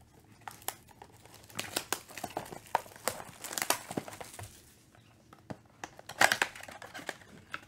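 Plastic shrink wrap crinkling and tearing as it is stripped off a trading-card blaster box, in irregular crackles, with the sharpest burst about six seconds in.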